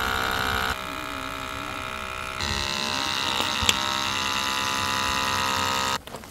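Handheld electric capsule espresso maker's pump whirring steadily as it pushes espresso out into a cup, with one sharp click partway through; the whir cuts off suddenly near the end.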